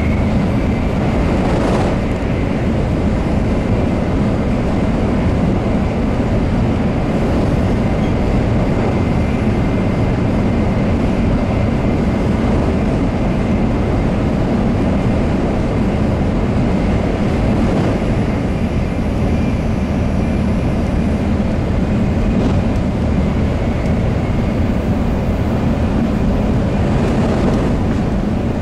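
Tokaido Shinkansen running at high speed, heard from inside the passenger car: a steady, dense low rumble and rush with a few brief swells.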